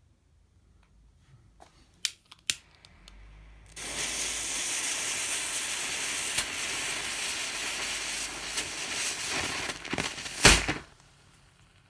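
Two sharp clicks, then ground match-head powder packed inside a clear plastic padlock ignites and burns with a loud steady fizzing hiss for about seven seconds, with one sharp pop near the end before it dies out suddenly. It burns off rather than exploding, leaving the lock scorched but intact.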